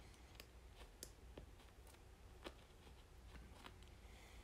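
A handful of faint, scattered clicks of small plastic LEGO pieces being handled and pressed together, over near silence.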